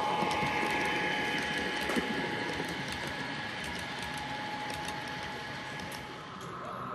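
Model train running past: a small model diesel locomotive and its passenger coaches rolling along the track, a steady whir with faint light clicking from the wheels, growing quieter as the train moves away.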